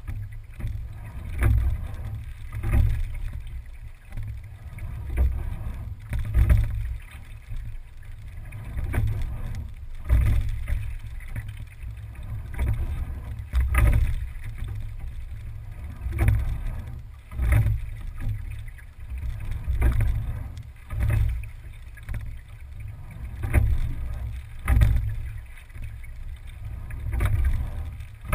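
Single scull being rowed at a steady, unhurried rate of about 16 strokes a minute. Each stroke brings two surges about a second apart, a sharp knock with a rush of water, over a constant low rumble.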